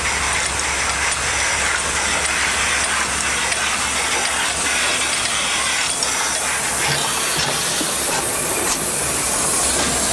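Small steam tank locomotive giving off a loud, steady hiss of steam as it moves slowly past close by.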